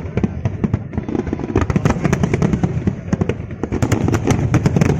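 Fireworks display going off: a rapid, irregular string of sharp bangs, many per second, over a steady low rumble of larger bursts.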